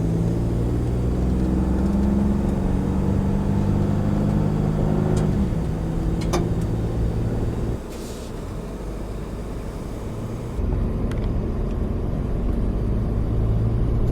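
Ford F-150 Raptor's twin-turbo V6 and tyres running steadily while driving on a gravel road, with a couple of sharp clicks about five and six seconds in. The sound drops quieter about eight seconds in and comes back up abruptly past ten seconds.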